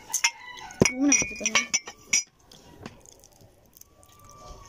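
A few light clinks of tableware, with one short ringing clink about a second in, among small clicking handling sounds and a brief voice sound. The second half is quieter.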